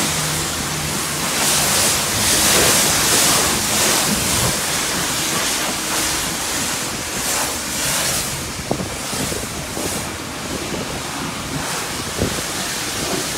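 High-pressure car-wash wand spraying water onto a car's body panels: a steady hiss that swells early on and eases later as the jet moves across the car.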